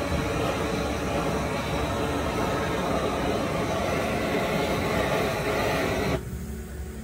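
A steady, loud rushing noise with no rhythm, cutting off abruptly about six seconds in, after which quieter music with steady tones remains.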